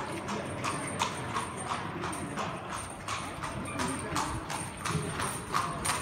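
Horse's hooves clip-clopping on stone paving as a horse-drawn carriage approaches, a quick regular beat of a few strikes a second that grows louder near the end.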